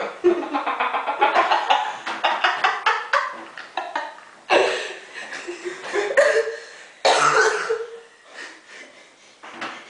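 People laughing hard and breaking into coughs, in several loud fits, with fresh fits starting about halfway through and again about two-thirds of the way in.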